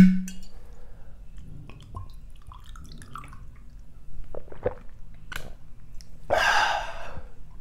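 A person drinking water from a plastic bottle: small clicks and short wet swallowing sounds, then a breathy rush about six seconds in. A sharp knock at the very start is the loudest sound.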